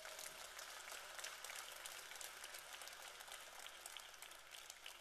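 A large audience applauding faintly, a dense patter of many hand claps that fades near the end.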